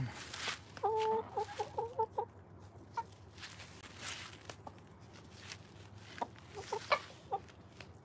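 Backyard laying hens clucking. About a second in, one hen gives a drawn-out call that breaks into a few short notes, followed by scattered short clucks later on.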